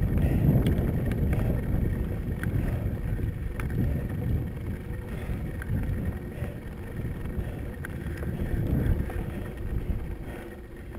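Maxx Huraxdax fat bike rolling over a gravel track: an uneven low rumble of the tyres on loose stones and wind buffeting the microphone, with scattered sharp clicks and rattles.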